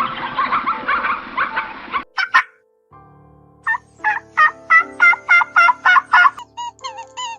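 Animal calls: a dense run of rapid, warbling bird-like calls for about two seconds that cuts off suddenly. After two sharp clicks and a short gap comes a string of about nine evenly spaced squeaky calls over steady background tones.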